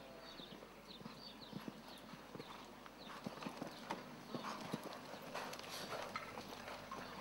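A horse's hooves thudding on a sand arena as it canters, the hoofbeats getting louder from about three seconds in.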